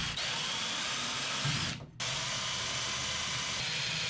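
Power drill running steadily with a high motor whine that drifts in pitch while drilling holes through the bathtub's edge for the screws into the wall studs. The sound stops briefly just before two seconds in, then carries on.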